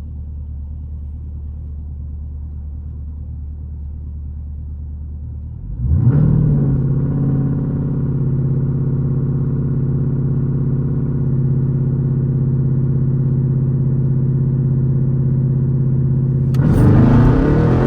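SRT Jeep's V8 idling, heard from inside the cabin. About six seconds in the revs jump and are held steady at one raised pitch for about ten seconds. Near the end the engine surges loudly as the Jeep launches on a wet road and loses traction.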